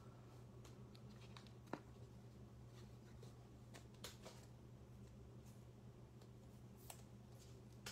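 Near silence: quiet room tone with a steady low hum and a few faint soft taps, the clearest about two seconds in, as trading cards are set down on a table mat.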